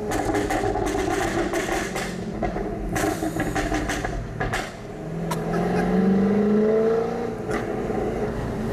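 Jaguar F-Type R Coupe's supercharged V8 through its stock exhaust, heard from inside the cabin: a rapid run of sharp, gunshot-like pops and crackles for the first four and a half seconds, then the engine note rising as the car accelerates.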